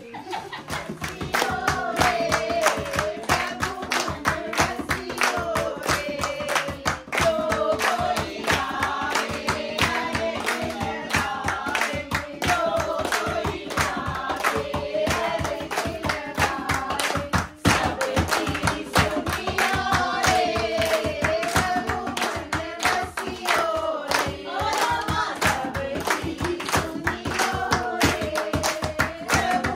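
A group of men, women and children singing a Hindu devotional song together in unison, kept in time by steady rhythmic hand clapping and a dholak drum. The singing and clapping start right at the beginning.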